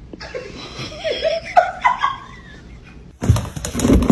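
A person laughing, with a louder burst of laughter near the end.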